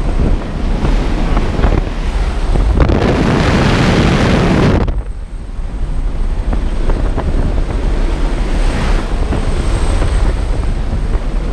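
Loud steady rush of slipstream and engine noise through the open door of a jump aircraft in flight, with wind buffeting the microphone. The rush swells for about two seconds from around three seconds in, then drops suddenly.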